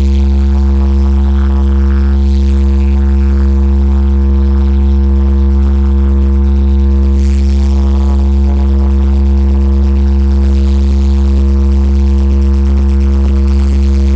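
A large sound system's subwoofers playing one loud, unbroken low bass tone, with a few fainter higher tones held steady along with it, during a sound check.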